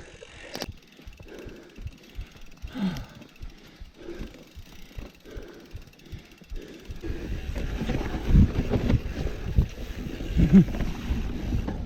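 Mountain bike rolling downhill: the rear hub ticking as it coasts, then from about seven seconds in a louder rumble of tyres over rough ground with bumps and wind on the microphone.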